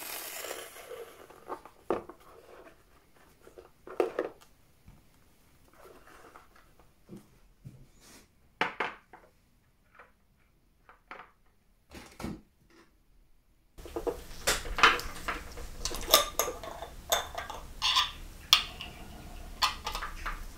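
Light clicks, taps and clinks of small metal clock parts, tools and glass being handled on a watchmaker's bench. The clicks are sparse at first and come thicker, over a faint steady background hum, from about two-thirds of the way through.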